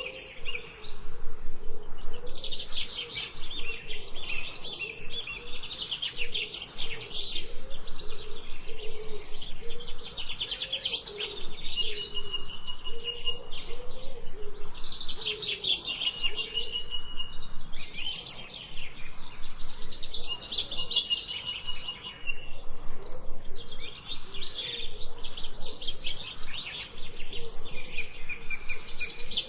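Forest birds singing, several at once, in bursts of rapid high chirps and trills every few seconds, with a fainter lower wavering call underneath.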